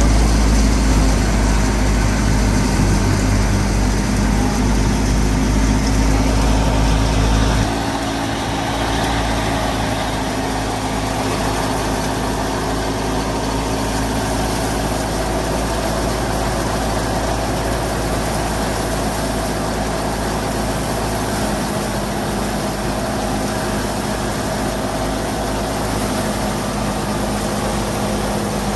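Fiat 480 tractor's diesel engine running steadily while it drives a wheat thresher. About eight seconds in, the deep low rumble drops away suddenly and the sound carries on a little quieter.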